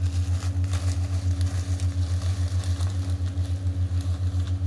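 Clear plastic packaging crinkling and crackling in the hands as it is opened, over a steady low hum that wavers several times a second.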